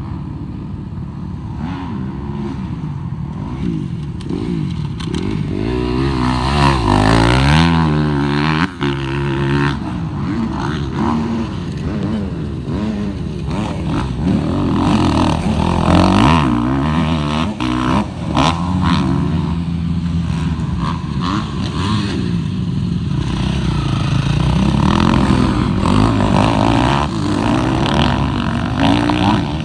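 Motocross dirt bike engines revving hard and easing off over and over as the bikes ride the dirt track, the pitch climbing and dropping with each burst of throttle. It swells loudest about seven seconds in and again around sixteen seconds.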